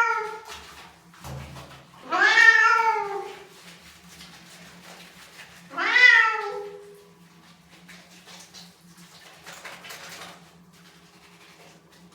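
Domestic cat meowing loudly while being bathed: long, drawn-out meows that rise and fall in pitch. One tails off at the start, then two more come about two and six seconds in, the protest of a cat in the bath.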